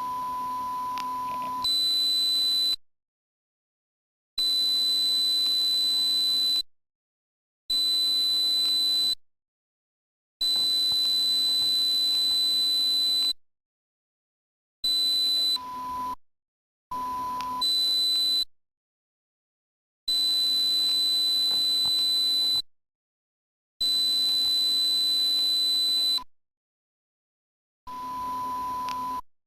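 Electronic pure tones for tinnitus masking: a high steady tone that sounds in stretches of one to three seconds with dead silence between, and a lower, quieter tone that comes in a few times, at the start, about halfway and near the end.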